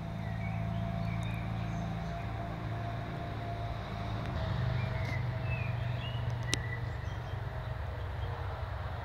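A steady low rumble, with a few short faint high chirps and a couple of sharp clicks over it.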